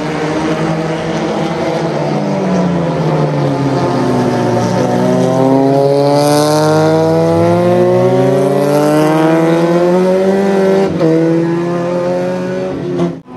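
Super FJ single-seater race cars' engines running hard. Several engine notes overlap, their pitch falling over the first few seconds and then climbing again as the cars pass and accelerate.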